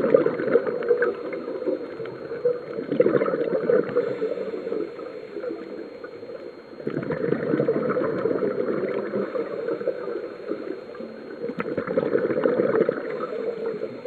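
A scuba diver breathing through a regulator underwater, with bubbling, crackling swells of exhaled air lasting a few seconds each and quieter stretches between. The bubbling is loud at the start, again from about seven seconds in, and near the end.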